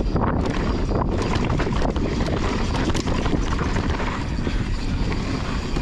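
Mountain bike descending a dry dirt trail at speed: steady wind noise on the GoPro microphone over the rumble of the tyres, with frequent short knocks and rattles from the bike over the bumps.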